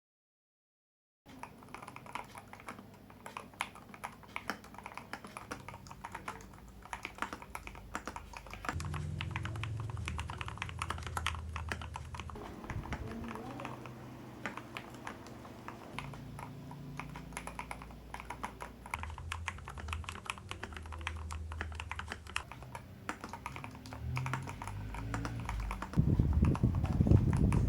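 Typing on a mechanical keyboard with a brass plate and dampener: a rapid, continuous run of key clicks and clacks, starting about a second in. Near the end a louder low rumble joins the typing.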